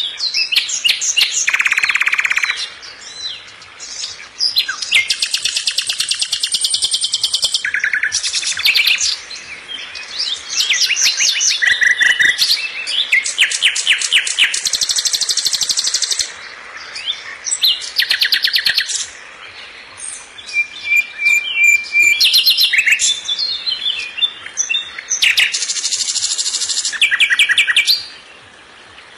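A small songbird singing a long, varied song of rapid trills and repeated high chirps, in phrases of a few seconds with short pauses between them.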